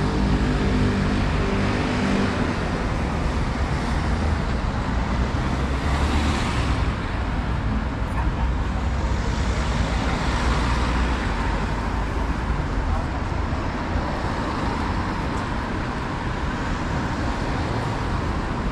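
City street traffic: cars driving past on the road. An engine's low hum fades away in the first couple of seconds, and passing cars swell and fade about six and ten seconds in.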